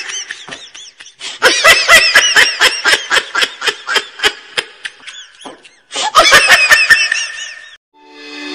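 High-pitched laughter in quick, rhythmic pulses, going on for several seconds with a brief break partway through and stopping shortly before the end, as music begins to fade in.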